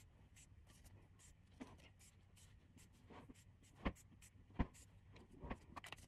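Near silence in a small room, broken by faint rustles and light handling taps, with two sharper short knocks about half a second apart past the middle.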